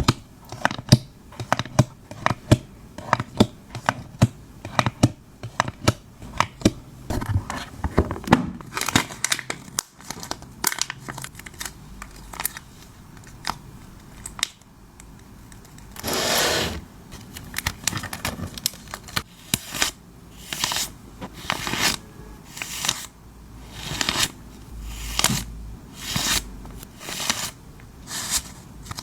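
Hands packing photocards: crinkling plastic packaging with many quick clicks and taps, then from about halfway a run of short tearing or rustling strokes about once a second, with one longer, louder one near the middle.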